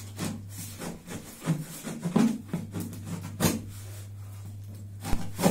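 A key scratching along and slitting the packing tape on top of a cardboard box, with irregular short strokes of scraping and tape tearing against the cardboard.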